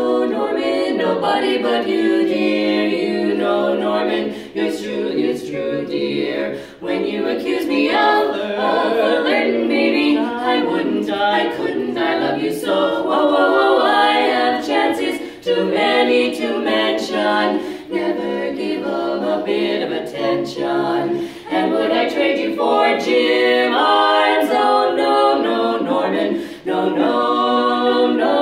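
A women's vocal quartet singing a cappella in four-part harmony, phrase after phrase with brief breaks between them.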